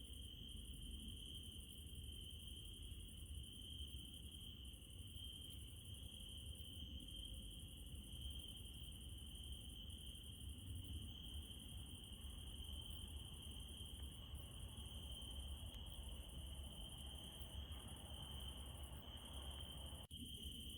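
Crickets chirping in a steady, continuous trill at night, with a fainter, higher insect trill pulsing above it over a low rumble. The sound cuts out briefly near the end.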